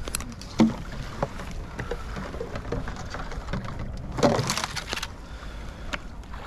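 Duck decoys and their weighted lines being untangled and thrown out into shallow flood water: scattered knocks and clicks over sloshing water, with a sharp knock about half a second in and a louder rush of splashing a little over four seconds in.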